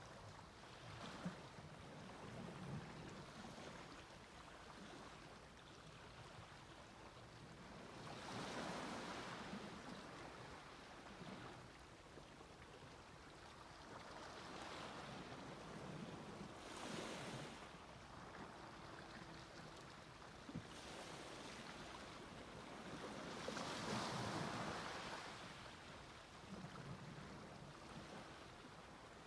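Sea waves breaking gently on a beach, with a louder break about every seven or eight seconds and the wash of the surf between.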